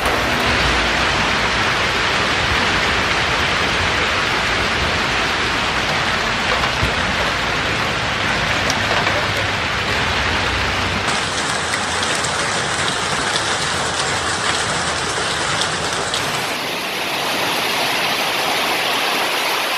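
Hailstorm: hail and heavy rain pelting down on surfaces as a loud, dense, steady hiss. The sound changes abruptly about eleven and again about sixteen seconds in.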